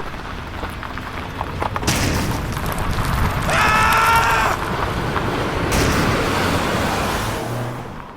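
Explosion sound effect: a long noisy blast that swells about two seconds in and dies away near the end, with a short pitched cry over it in the middle.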